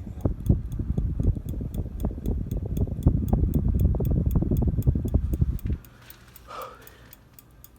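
Hampton Bay Minuet II six-blade ceiling fan running on medium, its airflow buffeting the microphone as a low rumble that cuts off suddenly about six seconds in. Under it runs a light, steady ticking about four times a second: the pull chains tapping the light bulb.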